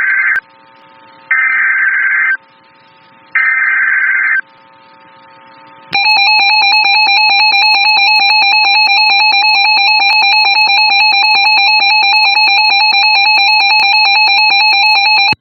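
NOAA Weather Radio emergency alert opening a tornado warning: three one-second bursts of screeching digital header data with radio static between them, then the steady, piercing alert attention tone for about nine seconds, cutting off suddenly.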